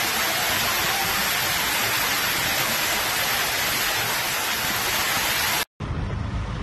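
Torrential rain pouring down in a loud, steady hiss. It cuts off abruptly near the end and gives way to a lower, rumbling rush.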